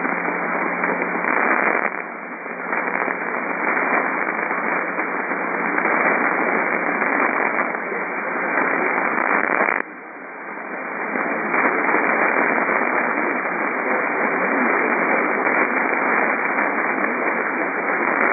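Radio static: a steady, dense hiss from a receiver with no signal, dipping briefly about ten seconds in.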